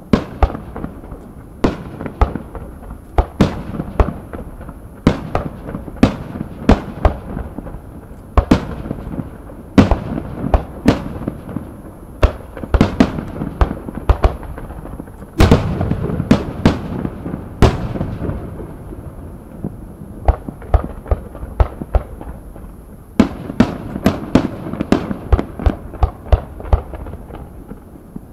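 Aerial fireworks bursting: a quick, uneven string of sharp bangs, sometimes several a second, over a constant low rumble of echoing reports. The rumble swells for a few seconds about halfway through, as a heavier volley goes off.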